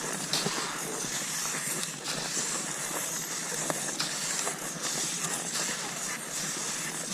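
Cross-country skis sliding over snow, a hissing swish that swells roughly every second or so with the skier's strides.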